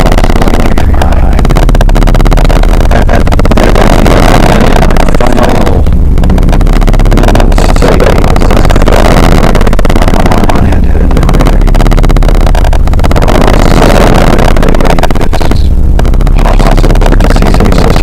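Harsh noise and power electronics music: a loud, dense wall of distorted noise over a heavy low rumble, thinning briefly several times.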